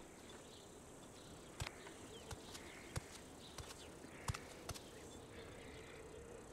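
Faint nature ambience: scattered short bird chirps over a light insect hum, with a few sharp clicks spread through the middle.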